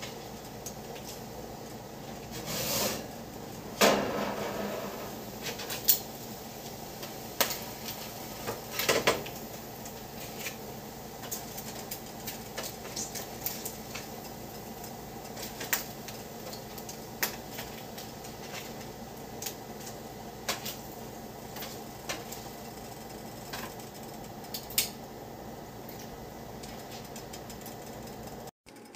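Metal tongs and cookware being handled on a stovetop: scattered clicks and clinks of metal on metal and a sheet pan, with one loud clatter and brief ring about four seconds in, over a steady low background noise.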